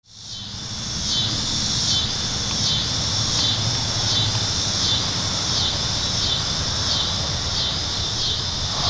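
Insects chirping in a steady rhythm, about one chirp every three-quarters of a second, over a low, steady outdoor rumble, fading in from silence at the start.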